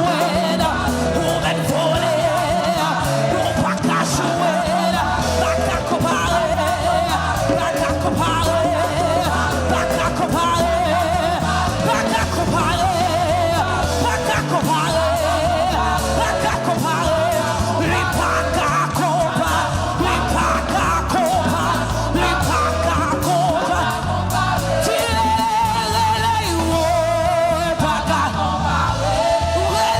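Live gospel worship music: a lead singer with a praise team over a band with bass and drums.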